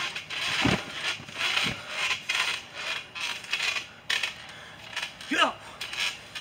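A body slamming onto a trampoline mat, two dull thumps in the first two seconds, then the trampoline's metal springs creaking and rattling in quick repeated bursts as the mat bounces and settles. A short vocal cry comes near the end.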